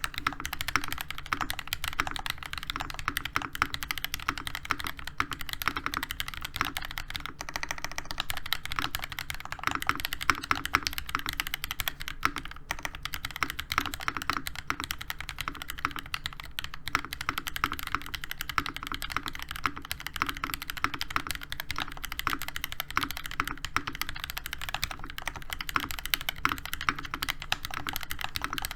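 Fast, continuous typing on a NovelKeys NK87 Entry Edition mechanical keyboard with a brass plate, hand-lubed Gateron Oil King linear switches and ABS Cherry-profile keycaps: a dense, unbroken stream of keystroke clacks.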